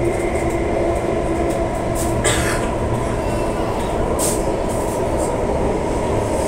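Singapore Downtown Line MRT train running between stations, heard from inside the carriage: a steady rumble with a constant hum. A few brief hisses come about two and four seconds in.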